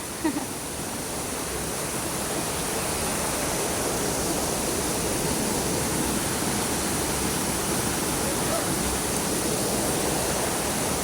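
Rushing water of a small waterfall on a stream, a continuous steady pour that grows a little louder over the first few seconds and then holds.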